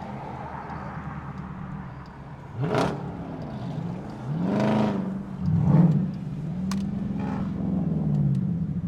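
A car engine running with a low rumble and revved up and down several times, the pitch climbing and falling with each blip of the throttle.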